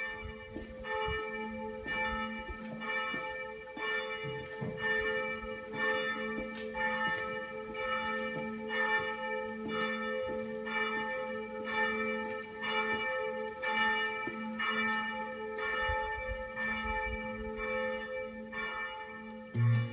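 A single church bell tolling steadily, about one stroke a second, with its ringing carrying on between strokes.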